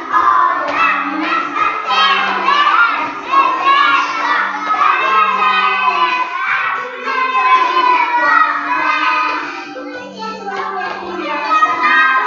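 A group of young children singing a song together to a music accompaniment.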